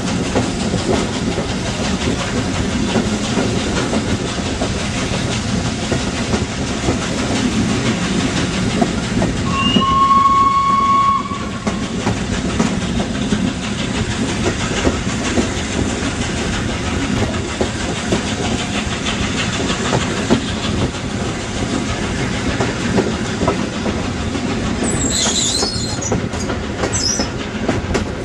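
Steam locomotive 60163 Tornado, a Peppercorn A1, running with its train, heard from a carriage close behind it: the steady noise of the train on the move, with wheels clattering over the rail joints. About ten seconds in, the whistle sounds one steady note for a second or two. Near the end there are a few brief high squeals.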